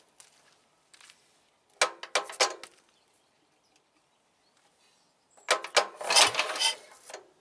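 Two attempts to start the Ransomes Matador mower's JAP engine. Each is a second or two of rattling mechanical clatter as the engine is turned over, and it does not catch and run.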